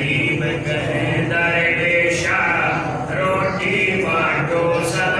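A man chanting a devotional text in a sung recitation, his voice moving in melodic phrases with no pause.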